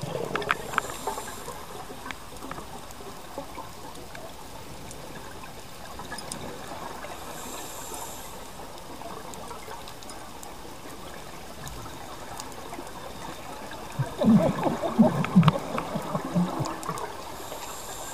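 Underwater sound of a scuba diver breathing through a regulator: a faint hiss of inhaled air about every seven seconds, and exhaled bubbles gurgling out, loudest for a few seconds near the end.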